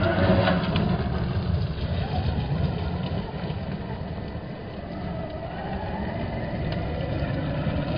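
Brushless RC short-course truck driving on gravel, its motor and drivetrain whining up and down in pitch over a steady low rumble of tyres on stones. Loudest about a second in, it eases off in the middle and picks up again.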